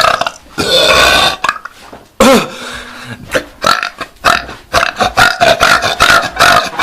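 A man belching loudly, over and over. A long burp comes in the first second and a half, then a sharp one about two seconds in that falls in pitch, then a long run of short rhythmic belch pulses, a few a second, through the rest.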